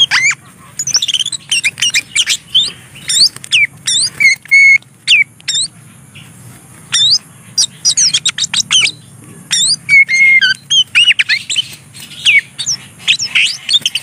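Oriental magpie-robin calling close up: quick, short whistled chirps and harsher squawky notes, many sliding sharply up or down, in scattered clusters with a short lull around the middle.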